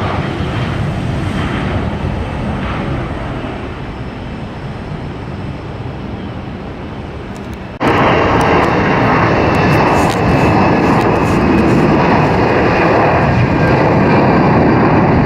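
Jet airliner engine noise, a steady rumble that eases slightly. About eight seconds in it cuts abruptly to a louder take, with a steady high whine over the rumble.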